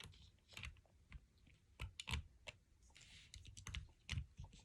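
Faint, irregular clicks and taps of small plastic Lego pieces being handled and knocked together, about a dozen spread through a few seconds.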